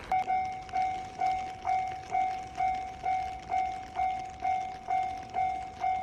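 Japanese railway level-crossing alarm ringing its "kan-kan" warning: a clear bell-like tone struck evenly, about two strikes a second, each dying away before the next.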